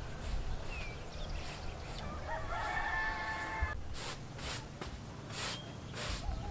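A rooster crowing once, a call lasting about a second and a half, followed by a few short swishing noises in the second half.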